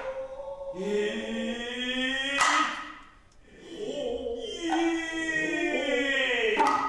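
Noh chanting (utai): voices hold long, drawn-out syllables whose pitch glides slowly, with two sharp strikes, about two and a half and six and a half seconds in.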